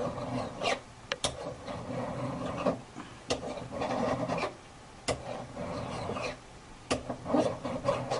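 Hand file working the end of a metal strip clamped in a jeweler's miter jig, filing it to a 45-degree angle: about five strokes of roughly a second each, with a tick as the file meets the work between strokes.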